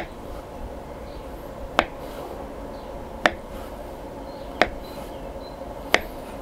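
A sharp knife slicing through a rolled log of soft yeast dough and striking a bamboo cutting board, five short knocks about a second and a half apart.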